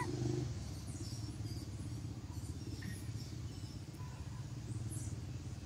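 Steady low rumble of a running engine, with a couple of faint short high chirps about three and five seconds in.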